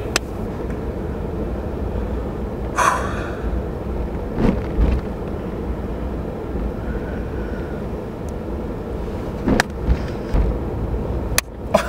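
Steady low rumble of a car's engine and road noise heard inside the cabin. About three seconds in there is a loud breathy sound, and near the end a few short clicks.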